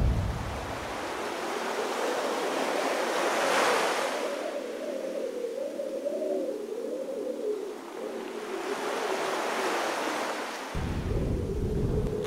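Strong wind gusting with the wash of sea surf, swelling twice, over a faint wavering whistle; a low rumble of wind on the microphone comes back near the end.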